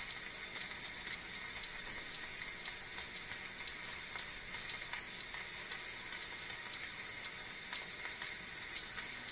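Instant Pot Lux Mini electric pressure cooker beeping at the end of its cooking cycle as it switches to keep-warm mode: a high electronic beep about half a second long, repeated once a second, about ten times.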